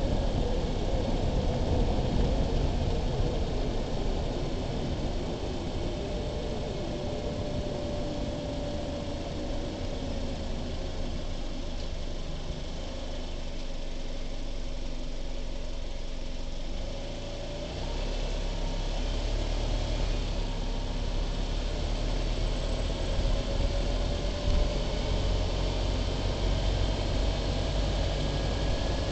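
Car driving slowly with its engine running steadily. The engine note sags gently mid-way and rises again near the end.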